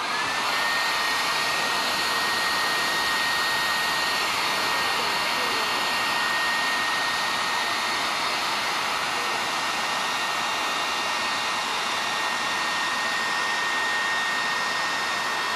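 Electric leaf blower running steadily: a constant rush of air with a steady whine from its fan and motor. The whine climbs briefly as it spins up at the start, then holds level.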